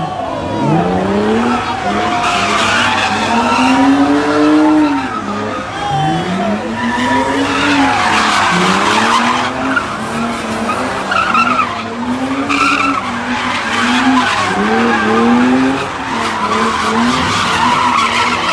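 A car doing donuts: its engine revs up and falls back over and over, about once a second, while the tires squeal on the pavement.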